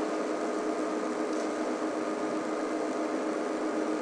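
Steady mechanical hum holding a few fixed tones, with an even hiss over it.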